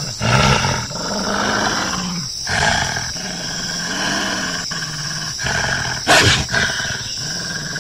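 Wolf growling steadily, low and rough, with louder snarls about half a second in and near three seconds, and a harsher snarl about six seconds in.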